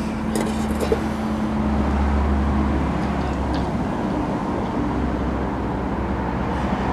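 Steady rumble of road traffic with a low hum; a steady low tone within it stops about three seconds in.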